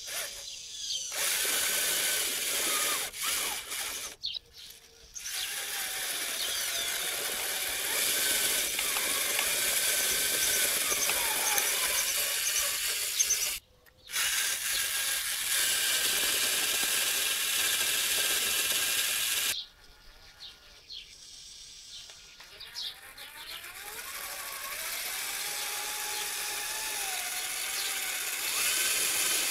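Electric drive motors and gearbox of a homemade RC tractor whining and rattling as it drives over loose dirt pulling a tined plow, the whine rising and falling in pitch. The sound stops abruptly a few times and comes back.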